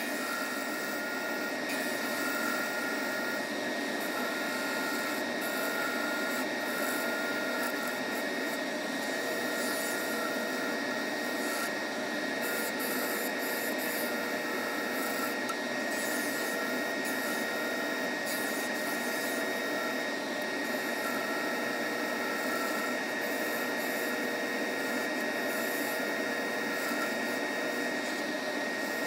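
Skew chisel cutting a spinning cross-grain blank of mixed woods on a wood lathe: a steady scraping hiss over a constant high whine from the running lathe.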